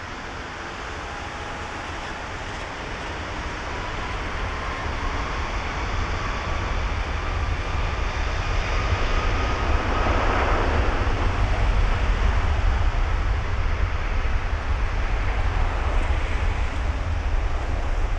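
Airbus A330-343 jetliner with Rolls-Royce Trent 700 engines on its takeoff roll at full thrust: a deep jet rumble with a thin whine rising in pitch, growing louder and loudest from about halfway through.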